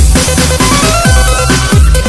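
Breakbeat dance music from a DJ set, loud, with an uneven broken pattern of deep kick drums that drop in pitch. A synth line climbs upward in short steps midway through.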